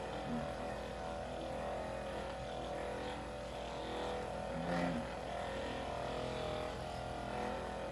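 Handheld percussion massage gun running steadily, its motor buzzing as it is pressed against a person's back.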